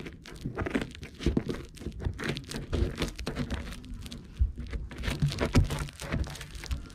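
Plastic packing tape and wrapping on a parcel crinkling and tearing as a blade cuts and saws into it, in irregular bursts of scraping and rustling.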